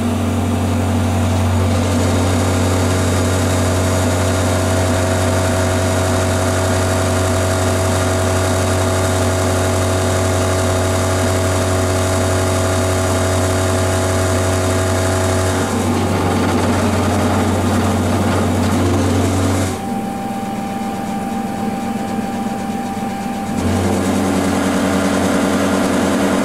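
Denford Micromill 2000 CNC milling machine cutting acrylic stock with an end mill: a loud, steady motor hum with several steady tones. A little past the middle the sound changes, the loud hum drops out for about four seconds leaving a single thin whine, and then it comes back.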